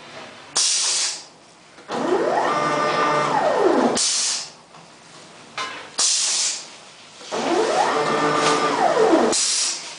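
Pneumatic bubble-film pouch making machine running through its cycles: the stepper-motor film feed whines, rising in pitch, holding, then falling, twice for about two seconds each, and the pneumatic cylinders on the seal bar let out short sharp hisses of air, four times, in pairs about two seconds apart.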